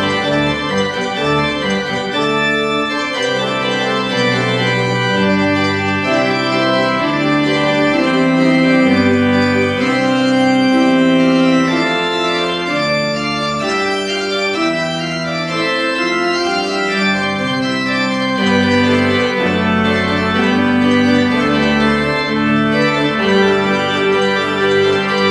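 Pipe organ playing a well-known melody arranged for organ: full, sustained chords over a bass line that steps from note to note about once a second.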